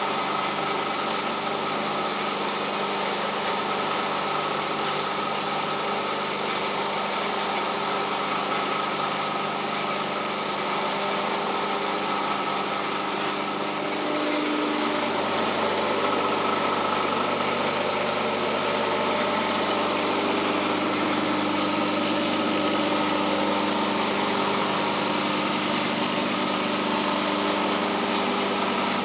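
Knife maker's belt grinder running steadily: a motor hum with steady tones over a hiss. About halfway through, the tones shift in pitch and the sound gets a little louder.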